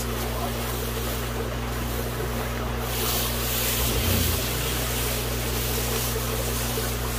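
Steady rush of running water in an aquarium setup over a constant electrical pump hum. The rush grows louder and hissier from about three seconds in, with a dull low bump around four seconds.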